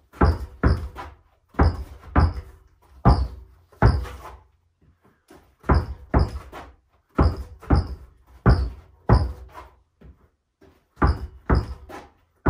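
Basketball dribbled hard on a carpeted floor: irregular thuds in quick groups of two or three, with a couple of short pauses between the groups.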